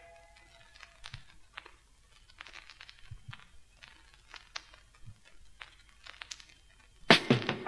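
Vinyl LP surface noise in the run-in groove between two songs: scattered clicks and pops of record crackle over a faint hiss. The last of the previous song fades out at the very start, and the next song comes in loudly with guitar near the end.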